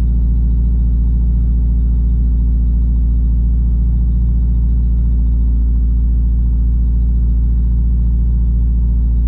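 2017 Subaru WRX's turbocharged 2.0-litre flat-four engine idling steadily just after a cold start. It idles rough because it is misfiring on cylinder 3 (code P0303).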